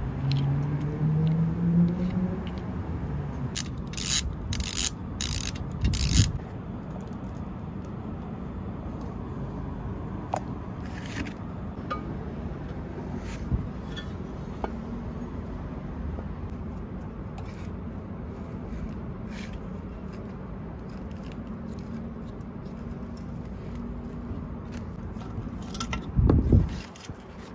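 Metal parts of a Black & Decker 4300 drill bit sharpener clinking and scraping as it is taken apart by hand with a hex key and screwdriver. A quick run of sharp clinks comes a few seconds in, with scattered small clicks after, and a louder clatter near the end, over a steady low background noise.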